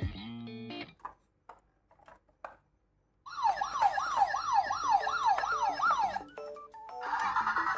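An electronic siren sweeping rapidly up and down, about two to three sweeps a second, starting a little after three seconds in and stopping about three seconds later, over light background music. Before it come a few faint ticks in near quiet, and near the end a rougher buzzing tone.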